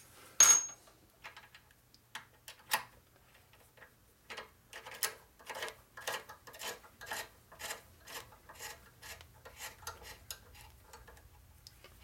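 A metal tool clanks once on the workbench, then a hand tap driver clicks about twice a second as it turns a tap through a threaded hole, re-cutting the threads that had stopped short and pinched a helicoil.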